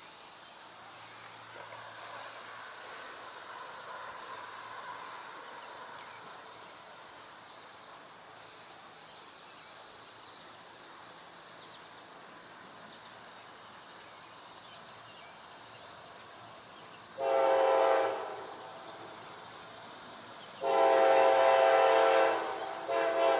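Multi-note air horn of a CSX GE ES44AH diesel locomotive sounding as the train approaches: a short blast late on, then a longer blast about three seconds after it, with another short one starting near the end. A steady high insect buzz runs underneath.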